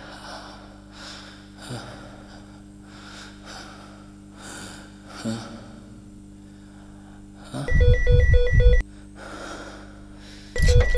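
A man's heavy, ragged breathing and indistinct mumbling over a low steady hum. About three-quarters of the way through, a phone rings in a loud burst of about a second of pulsing electronic beeps over a buzz, and it starts ringing again near the end.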